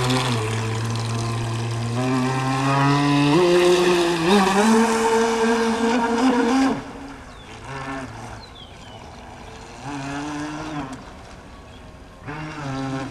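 Electric motor whine of an RC motor yacht under way. The pitch steps up about two and then three and a half seconds in as the throttle is opened, then cuts back about halfway through to a quieter sound with a few short bursts of throttle.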